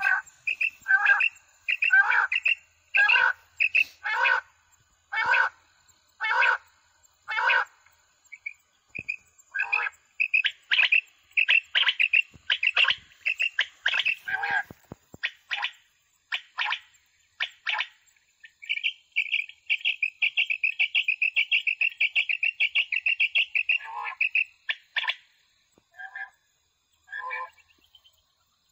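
Recorded quail calls played loud through the small horn loudspeakers of a battery-powered quail caller set out to lure quail. Short call phrases repeat about once a second, grow denser, then turn into a fast run of rapid notes for several seconds past the middle before thinning out.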